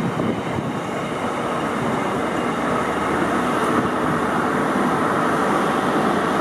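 Freight train of bogie hopper wagons rolling past, a steady noise of steel wheels on the rails that grows a little louder in the second half.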